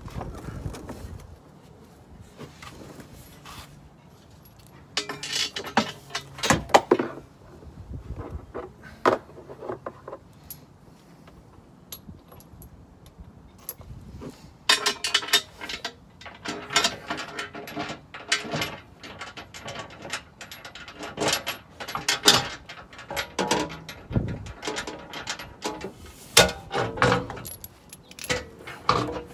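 Steel skid plate and its bolts clanking, scraping and rattling as the plate is handled and lifted into place under a Jeep: scattered metal knocks for the first half, then a busier run of clatter from about halfway.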